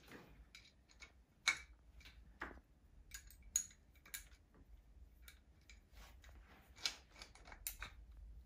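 Faint, irregular metallic clicks and ticks of a small hex key turning M6 screws into an aluminium motor mount.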